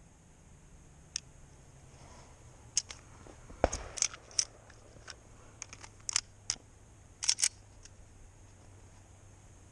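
A scattered series of sharp clicks and clacks, singly and in quick pairs, with one heavier knock about a third of the way in, over a faint low hum.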